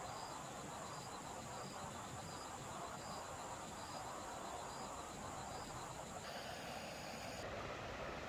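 Insects calling: a steady high trill with a short high chirp repeating about every three-quarters of a second, over a steady hiss. The sound changes abruptly about six seconds in.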